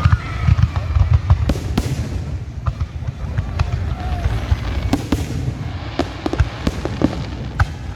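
Fireworks going off: a string of irregular sharp bangs and crackles over a steady low rumble.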